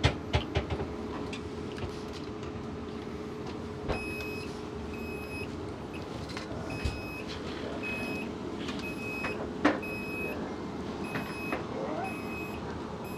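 Passenger train carriage running, a steady rumble and hum. From about four seconds in, short high electronic beeps repeat evenly at under two a second until near the end. A few sharp knocks come at the start and twice more.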